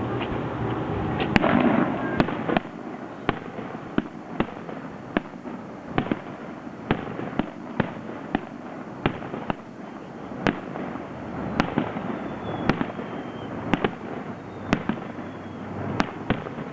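Fireworks bursting overhead in a quick, steady series of sharp bangs, about two a second, over a continuous crackling rumble. A louder, denser cluster comes about a second and a half in, and faint whistles fall in pitch near the end.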